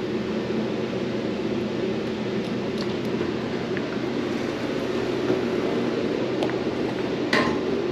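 Elevator car riding, a steady mechanical hum and rumble inside the cab, with a few light clicks and a sharper tick near the end.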